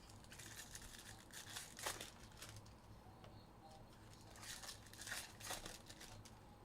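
Trading-card packaging (plastic and foil wrapping) being crinkled and torn open, in two short bouts of crackling with a pause between.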